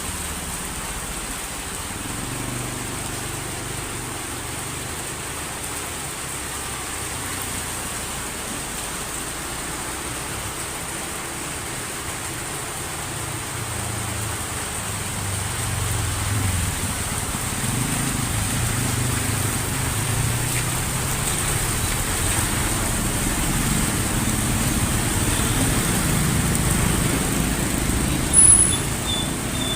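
Heavy rain falling steadily, with the low rumble of road traffic that swells and grows louder from about halfway through. A brief high-pitched blip sounds near the end.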